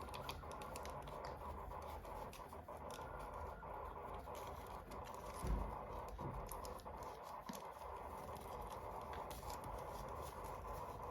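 Hands handling toy packaging, with many small scratches and light taps over a steady background hum, and one soft thump about five and a half seconds in.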